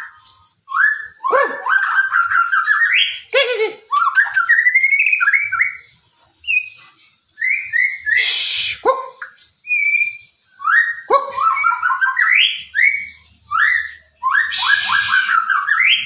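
White-rumped shama singing: bouts of loud, clear whistled phrases every second or two, some notes sweeping down in pitch, with two brief harsh rasping bursts among them.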